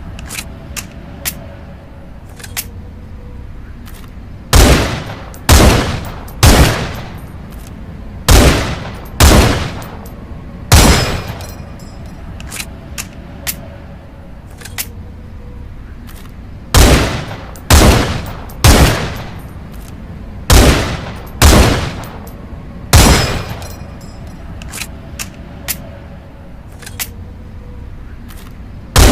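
Rifle gunfire from the M182 Pierre fusil sound effect: about a dozen single shots, each with a short echoing tail. The shots come in groups of two or three about a second apart, with pauses of a few seconds between groups. Fainter sharp clicks fall between the shots.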